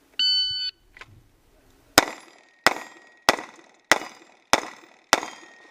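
Electronic shot-timer beep, then six pistol shots about 0.6 s apart, each followed by the ring of a hit steel target.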